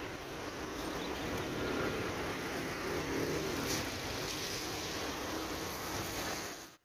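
Rolls-Royce Trent 700 turbofans of an Airbus A330-300 at climb power: a steady, distant jet roar as the airliner climbs away after takeoff. It cuts off abruptly near the end.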